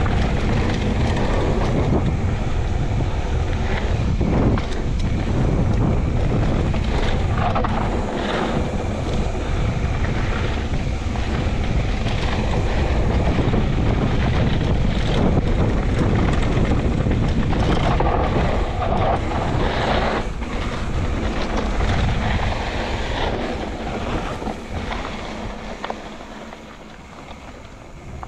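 Mountain bike riding a downhill trail: wind buffeting the microphone over tyre noise on dirt, with scattered knocks and rattles from the bike. It quietens over the last few seconds.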